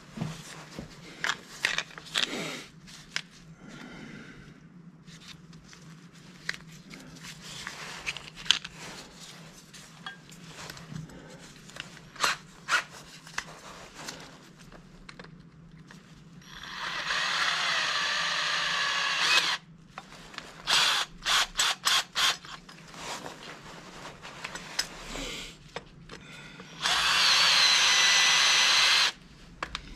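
Electric drill running in short bursts of about three seconds, drilling a hole that is to be tapped, with small clicks and knocks of handling between the bursts.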